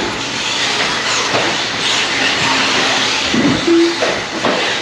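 A pack of electric 1/10-scale RC trucks (truggies and stadium trucks) racing on the track: a steady hiss and whine of brushless motors and tyres, with a few knocks and a short tone about three-quarters through.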